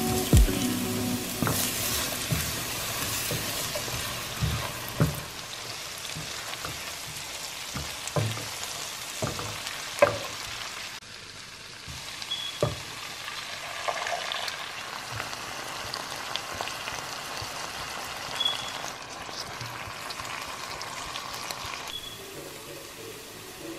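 Food frying in a pan, diced red onion and then vegetables, with a steady sizzle and scattered knocks of a spoon against the pan as it is stirred. The sizzle is louder in the first half and drops off about halfway through.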